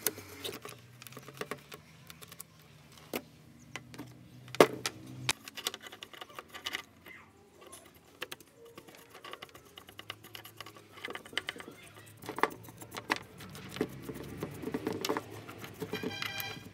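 Bristle paintbrush scrubbing dust off a cassette deck mechanism and a small circuit board: an irregular run of dry scratches and light clicks.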